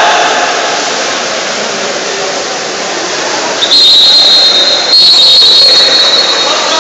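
Water polo referee's whistle blown twice in long steady blasts. The first starts about three and a half seconds in, after a few seconds of noisy pool-hall din, and the second follows a moment later and runs to the end.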